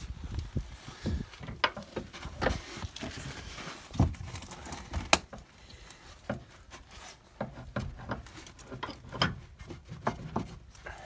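Irregular clicks, knocks and clunks of a steel lower suspension arm (wishbone) and its bolts being handled and offered up into place by hand, with a thud about four seconds in and a sharp metallic click about a second later.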